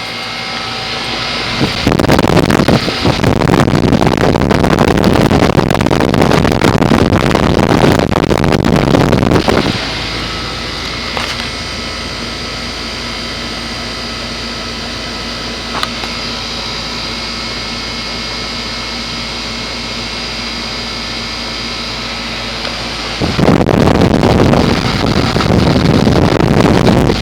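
Heat pump outdoor unit running: a steady hum with several fixed tones from the compressor and condenser fan. Twice it is covered by loud rushing noise, once from about 2 to 9.5 seconds in and again from about 23 seconds in.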